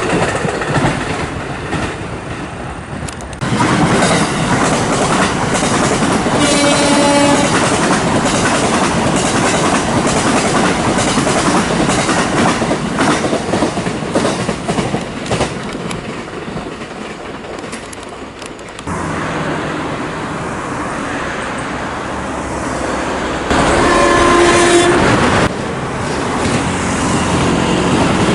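JR West 227 series electric train running over the rails, wheels clattering steadily, sounding its warning horn at whistle signs: a short single-pitch blast about seven seconds in, and a longer one of about two seconds later on, slightly higher in pitch.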